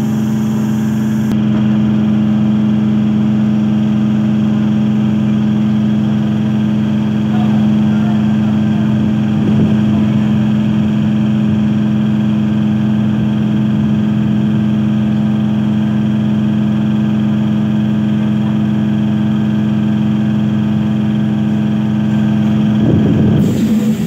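MEDHA electric multiple unit local train running, heard from its open doorway: a steady electrical hum of constant pitch over the running noise, turning rougher and a little louder near the end.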